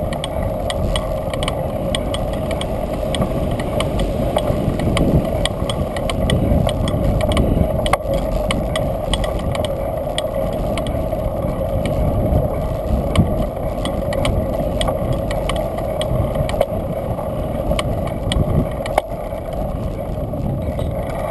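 Bicycle being ridden along a concrete pier, heard from a camera mounted on the bike: a steady rumble with a constant hum and frequent small rattling clicks from the moving bike.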